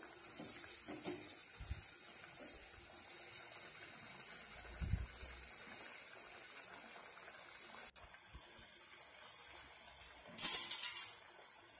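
Chicken and masala sizzling steadily in a clay pot in the chicken's own released juices, with a couple of soft knocks and a brief louder scrape near the end.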